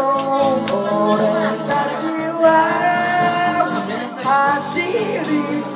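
A man singing into a microphone over a karaoke backing track.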